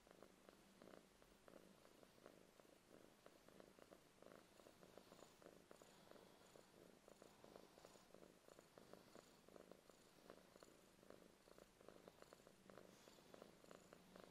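Domestic cat purring steadily and quietly while its head is massaged, a sign of contentment.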